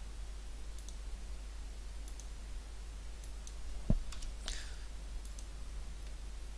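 Computer mouse clicks, a few faint ones with a sharper knock-like click about four seconds in, over a steady low hum.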